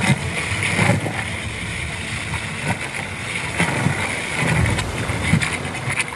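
Water rushing and splashing around a rider sliding feet-first down an enclosed water slide tube, heard close up from a camera on the rider, with a low rumble and irregular thumps as the body rides along the tube.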